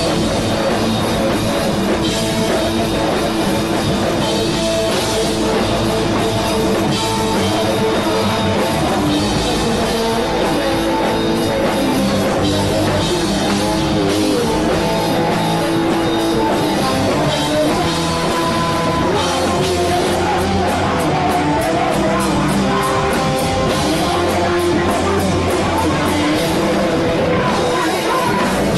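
Rock band playing: a drum kit, electric guitars and a singer, continuous and loud.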